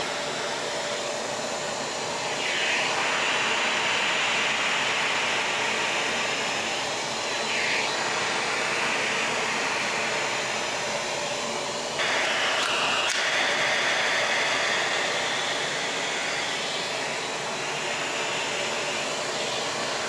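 Tineco Pure One Station cordless stick vacuum running in pet grooming mode, its motor whirring steadily while the grooming brush on the hose is drawn through a dog's coat. A higher rushing sound swells and fades a few times over the steady whir.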